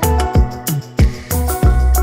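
Background music with a steady beat: a deep bass drum falling in pitch on each hit, over a repeating tune.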